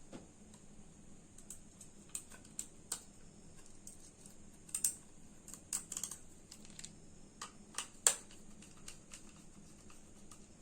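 Small screws being driven by hand with a screwdriver into a metal drive caddy on a 2.5-inch SSD: light, irregular clicks and taps, the sharpest about eight seconds in.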